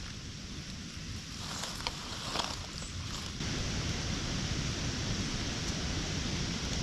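Strong wind rushing over the microphone, a steady noise that steps up louder about halfway through, with a few faint ticks around two seconds in.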